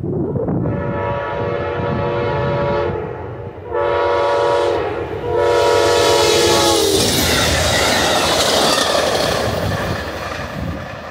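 Amtrak GE Genesis P42DC locomotive sounding its horn in three blasts as it approaches, the last blast dropping in pitch as the locomotive passes. The train then rushes by with its wheels clattering on the rails, fading near the end.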